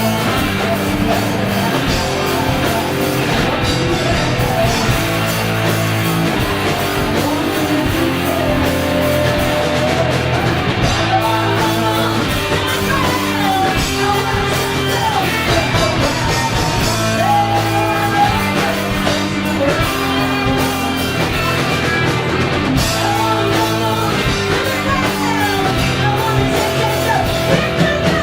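A live rock band playing a funky original song, with a voice singing over the instruments.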